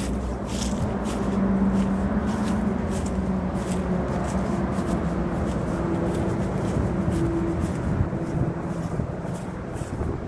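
Steady rush of expressway traffic, with a low drone from passing vehicles that shifts slowly in pitch.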